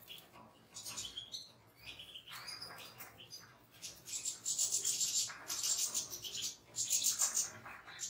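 European goldfinches chirping and twittering. The chirps are sparse and faint at first, then turn into busier, louder twittering from about halfway through.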